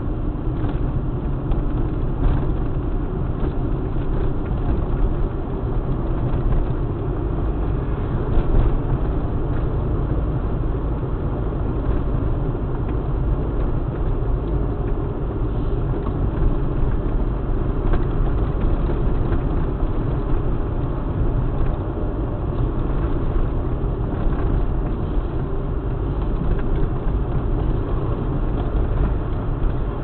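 Yugo Florida 1.3 EFI driving at steady speed, heard from inside the cabin: the four-cylinder petrol engine and tyre and road noise make a steady low rumble.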